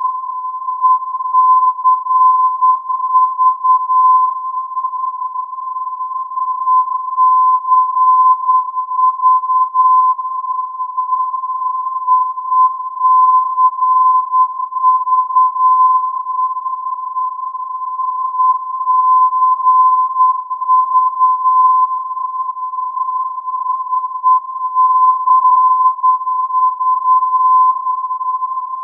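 Non-directional beacon received on AM at 319 kHz: a steady 1020 Hz tone with the Morse identifier 'ECV' keyed on it, the keyed groups coming back every few seconds.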